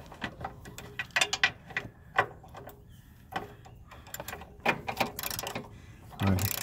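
Hand socket ratchet clicking in short bursts as it turns a 15 mm bolt on the RV's old front sway bar, being loosened for removal.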